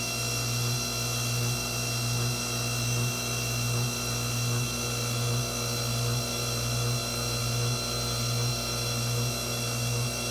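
Electric pasta maker's motor running steadily, a hum with an even throb a little faster than once a second as it turns and mixes the dough.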